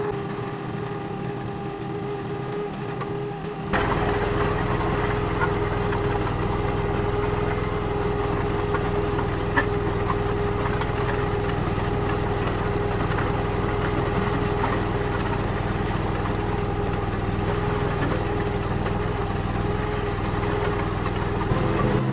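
Honda gas engine of a Derette DRT450 mini skid steer running steadily while it works; about four seconds in it suddenly becomes louder and fuller, and stays that way.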